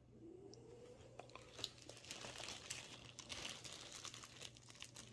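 Faint crinkling and crackling of a plastic toy wrapper being handled and opened, with many small clicks.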